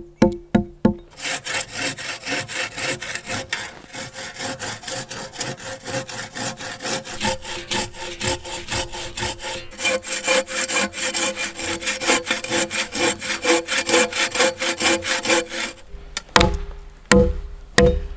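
A hand saw cutting through a log in quick, even back-and-forth strokes, with background music underneath. The sawing stops about two seconds before the end, and the music carries on alone.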